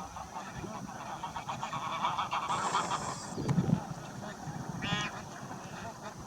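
Flock of bar-headed geese calling: many overlapping honks, swelling loudest about two to three seconds in.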